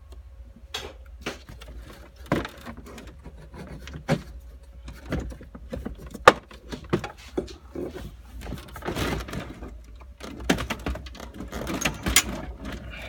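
Scattered knocks, clicks and scrapes of a 1996 Chevy S10's plastic dashboard being pried loose and lifted up, with one sharp knock about six seconds in.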